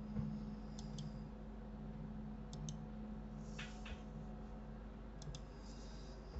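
Computer mouse clicking, three quick double clicks spread across a few seconds, faint over a steady low electrical hum, with a brief soft hiss just past the middle.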